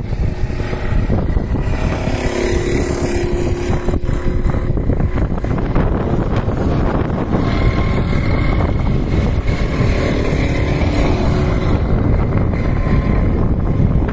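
Racing karts' engines running as they pass close by, their engine notes coming up about two seconds in and again from about seven seconds, under heavy wind buffeting the microphone.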